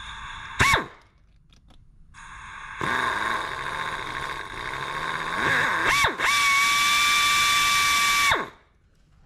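An air drill starting a pilot hole in the broken exhaust-manifold stud of a Toyota 1HZ cylinder head. It gives one short trigger blip, then hisses with air and whines. About six seconds in the whine rises to a steady pitch, holds for about two seconds, then cuts off sharply.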